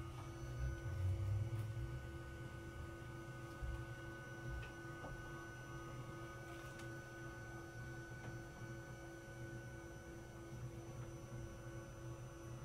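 A steady hum of a few held tones, with a faint low rumble and a few light clicks.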